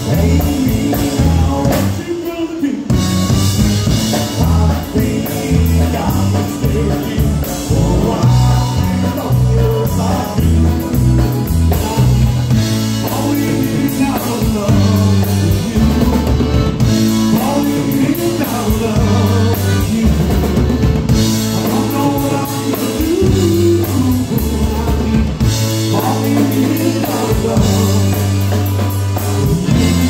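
Live polka band playing: a concertina, electric bass guitar and drum kit with a male lead vocal, over a steady bass line.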